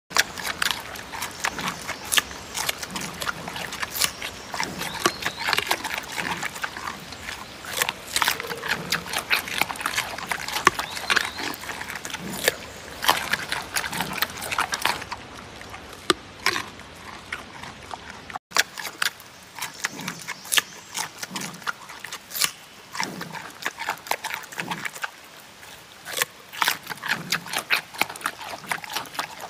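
Giant pandas crunching and chewing raw carrots: a dense, steady run of crisp crunches with soft chewing thumps between them, broken by a brief dropout about eighteen seconds in.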